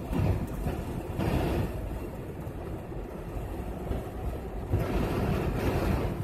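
Steady road and wind noise inside a moving car's cabin, a low rumble that swells louder at the start, again about a second in, and from about five seconds in, as strong winds buffet the car.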